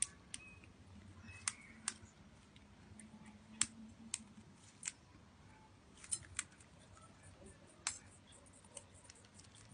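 Wild birds eating at close range: irregular sharp clicks and cracks, typical of beaks cracking seed.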